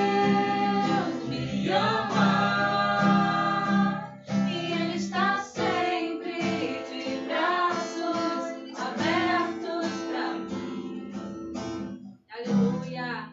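A female voice singing a worship song, accompanied by a strummed acoustic guitar.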